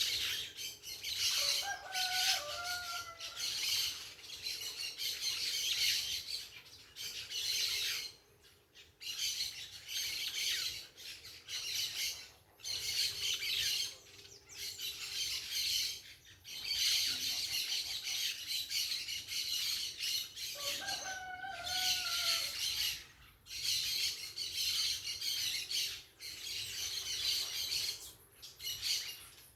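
A flock of parakeets chattering and screeching in dense, shrill bouts broken by short pauses. Twice, a lower, stepped call from another bird sounds under the chatter.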